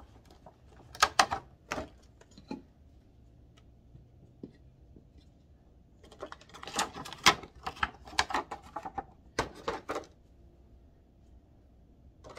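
Quick clicks, taps and light rustles of small decorations being handled and set into a little wooden tray. They come in two spells, about a second in and again from about six to ten seconds.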